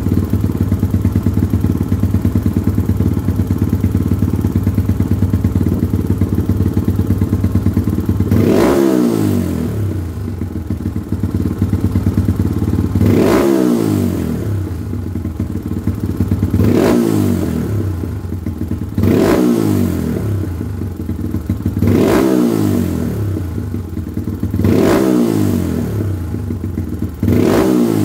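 Full-competition-tuned Kawasaki KLX single-cylinder trail bike engine idling, then blipped about seven times from about eight seconds in, each rev rising sharply and dropping quickly back to idle.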